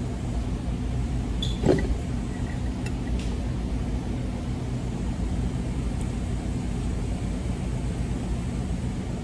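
Steady low hum of room background noise, with a faint click and rustle about a second and a half in and another faint tick around three seconds in.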